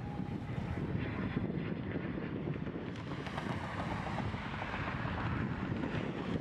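Learjet 36's twin Garrett TFE731 turbofans running as the jet rolls out on the runway just after touchdown, with a jet hiss that swells in the middle. Heavy wind buffeting on the microphone throughout.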